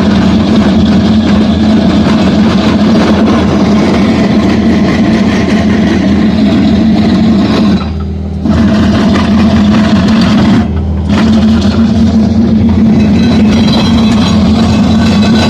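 Mini skid-steer loader running under load with its road planer (cold milling) attachment grinding into concrete pavement: a steady loud engine hum with grinding noise over it. The sound drops out briefly twice, near the middle and about two-thirds in.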